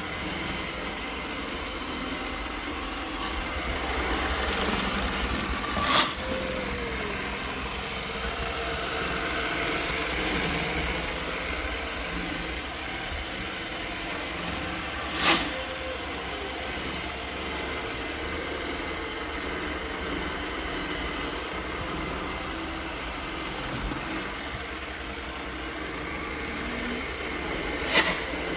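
Roomba S9 robot vacuum running with a steady mechanical hum and a puffing, grinding sound. Three short sharp puffs stand out: about six seconds in, again around fifteen seconds, and near the end. The noise persists with a new cleaning head fitted, so the head was not its cause.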